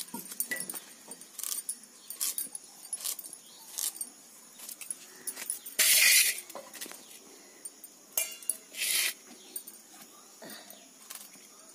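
Raw pumpkin being peeled and diced against an upright curved blade: a string of short crisp slicing clicks, with bangles on the wrists clinking. There are two louder, longer scraping sounds about six and nine seconds in.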